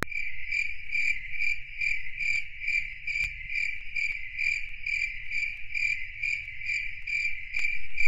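Pedestrian crossing's audible signal beeping while the green man is lit: an evenly pulsed high beep, about two and a half a second, over a faint low traffic rumble.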